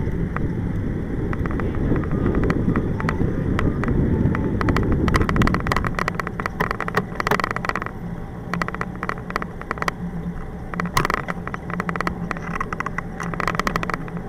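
Wind buffeting the bike-mounted camera's microphone over tyre and road noise from a moving tandem bicycle. From about six seconds in, rapid clicks and rattles are heard as the bike runs over cracked pavement.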